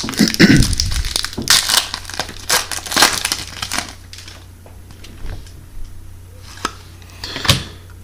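A trading-card pack wrapper crinkling and crackling as it is opened and handled, loudest over the first few seconds. It is followed by quieter clicks of card handling and another brief crinkle near the end.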